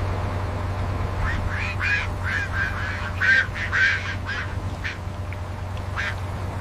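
Ducks quacking in a quick run of short calls from about a second in to about four seconds in, with one more quack near the end, over a steady low hum.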